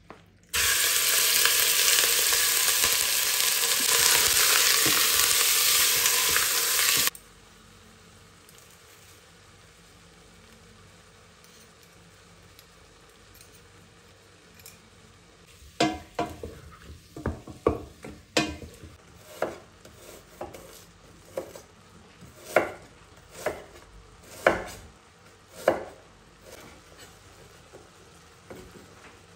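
Raw lamb chunks tipped into hot oil in a stainless steel pot, sizzling loudly for about six seconds and cutting off suddenly. After a quiet stretch, a run of sharp knocks and taps, about one a second.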